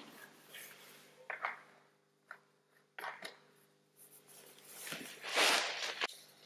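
A few light clicks and knocks of hands working at a mini dirt bike's fuel tank and filler cap after refuelling, then a louder rustle of a padded jacket passing close by, about five seconds in. A faint steady hum runs underneath.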